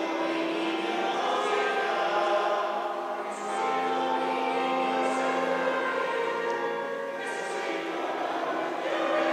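Mixed choir of men's and women's voices singing held chords, with the hiss of sung 's' consonants coming through every couple of seconds.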